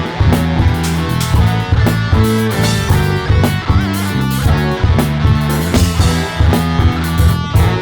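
Live instrumental rock passage: distorted guitar and bass riffing over a drum kit, with a steady driving beat.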